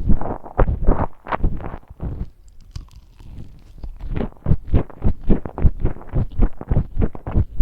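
A person chewing fried chicken nuggets and fries close to the microphone, in quick, wet, crunchy bites about three a second. The chewing eases off briefly about two seconds in, then picks up again.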